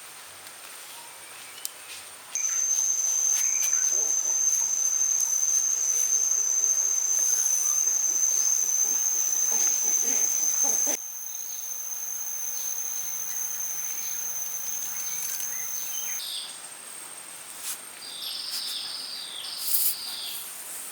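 An insect calling with one steady, high-pitched trill that starts suddenly a couple of seconds in and cuts off about sixteen seconds in. Short bird chirps follow near the end.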